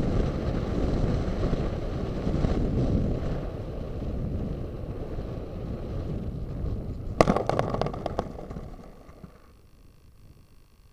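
Wind rushing over a camera mounted on a Diamond 2500 radio-controlled model plane as it lands and slides across sand, slowly dying away as it slows. About seven seconds in comes a quick run of sharp knocks and rattles as it bumps to a stop, then the rush fades out.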